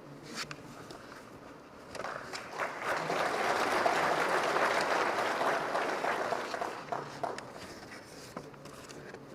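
Audience applauding: a few scattered claps, then clapping that swells about two seconds in, holds for a few seconds and dies away near the end.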